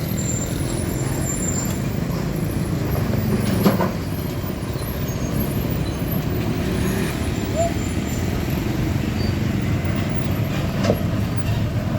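Heavy diesel trucks running along a road with a steady low rumble. There is a brief sharp click about a third of the way in and another near the end.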